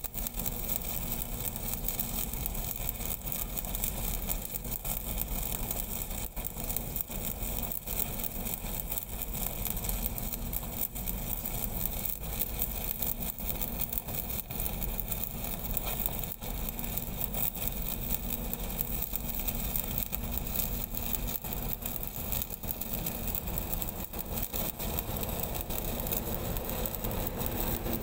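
Stick (SMAW) welding arc crackling and sizzling steadily as a large-diameter steel pipe joint is welded, over a steady engine hum.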